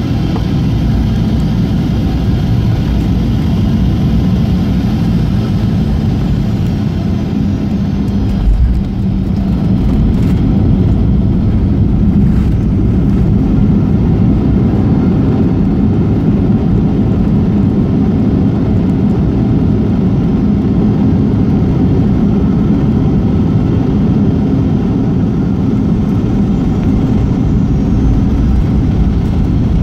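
Cabin noise of a Boeing 737-800 landing, heard from a seat near the wing: a steady roar from its CFM56-7B engines and the airflow, then a thump as the main wheels touch down about eight and a half seconds in. After the touchdown the roar of the landing rollout is a little louder.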